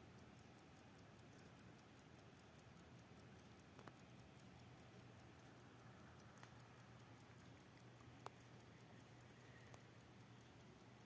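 Faint, quick, even ticking of a vintage ImHof 8-day brass alarm clock's balance-wheel movement, about five ticks a second.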